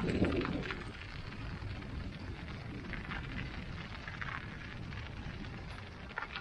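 Mountain bike tyres rolling over a snow-covered path: a steady low rush with scattered crunching clicks, a little louder in the first second.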